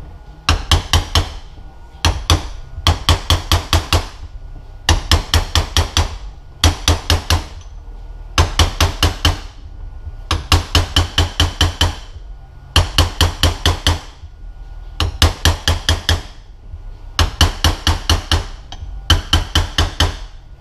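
Hammer tapping on a punch, metal on metal, to drive a new oil seal into a Mazdaspeed 6 transfer case in place of a seal driver. Short runs of quick light taps, several to a run, with a pause of about a second between runs, repeated throughout.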